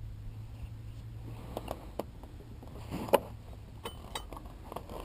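Scattered light clicks and knocks over a steady low hum, with one sharper knock about three seconds in.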